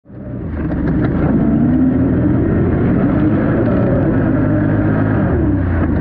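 An ATV engine running, its pitch wavering up and down as the throttle changes. The sound fades in over the first half second.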